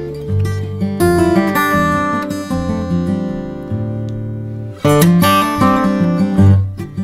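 Background music: an acoustic guitar strumming chords, with new chords struck about once a second.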